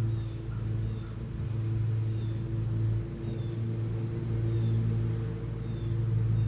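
A boat motor running steadily, a low hum with overtones whose loudness swells and dips every second or two.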